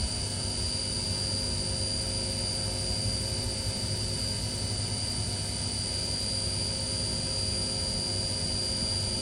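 SYIL V7 CNC machining center spindle running steadily at 6,000 RPM, a constant high-pitched whine over a low motor hum.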